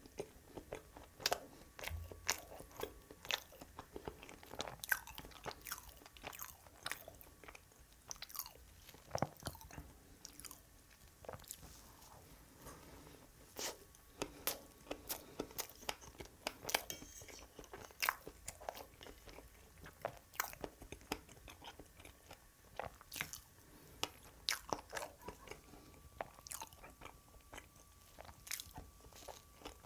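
Close-up eating sounds of a strawberry layer cake being chewed: wet, sticky chewing with many short, sharp clicks and smacks coming irregularly.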